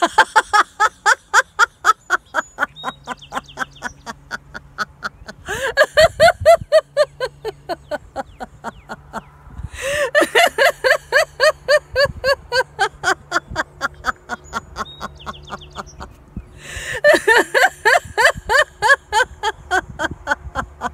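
A woman laughing heartily in a laughter-yoga exercise: long bouts of rapid 'ha-ha-ha' pulses, several a second, broken by three short pauses for breath.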